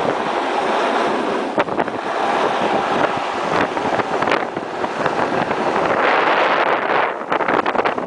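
Wind buffeting the camcorder's microphone: a loud rushing noise that surges and eases unevenly.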